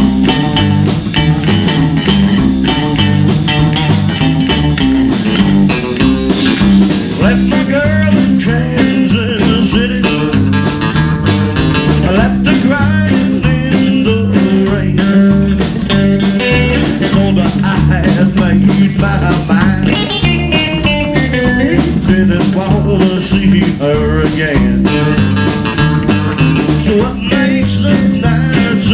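Rockabilly band music: electric guitar over a stepping bass line and a steady drum beat.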